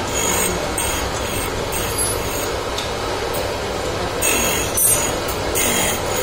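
A tool and cutter grinder's abrasive cup wheel grinding the teeth of a milling cutter to sharpen it. Under a steady running noise, high screeching bursts come and go as the wheel meets the teeth. The bursts are sparser in the middle and pick up again near the end.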